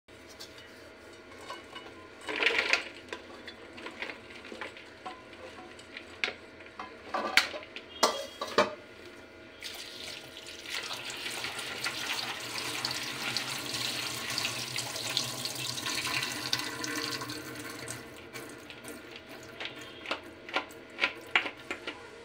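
Kitchen tap running into a red plastic bowl as green chillies are rinsed by hand, with knocks and clatters as the bowl, colander and chillies are handled. The water runs steadily through the middle stretch, with sharper knocks before and after it.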